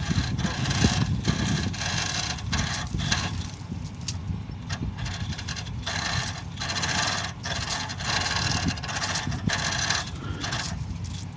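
Pickup truck engine running at a low rumble as it slowly pulls a travel trailer through snow, with irregular scraping noises over it.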